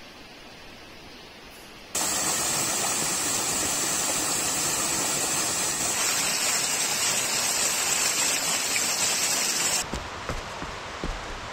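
A loud, steady hiss of rushing water cuts in suddenly about two seconds in and cuts out near the end, leaving a quieter hiss with a few light knocks.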